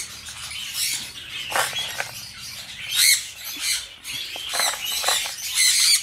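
Small aviary parrots chattering with high-pitched chirps and squawks, a louder burst of calls every second or two. Under them, a soft patter of soaked seeds being scooped by hand.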